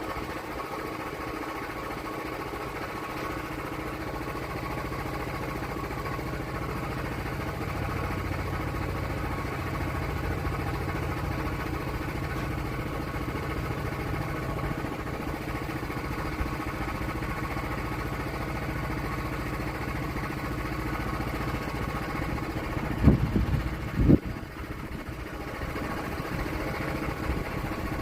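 An engine running steadily, with two loud knocks in quick succession near the end.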